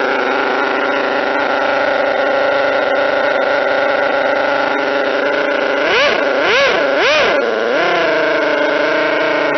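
Model twin-rotor Wankel nitro engine running at a steady speed, then blipped three times in quick succession about six seconds in, each rev rising and dropping back before it settles to a steady run again.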